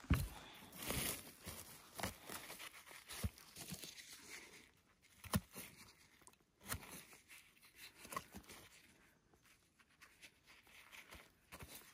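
Dry forest-floor litter and twigs crunching and rustling irregularly, with a few sharper snaps spaced a second or so apart.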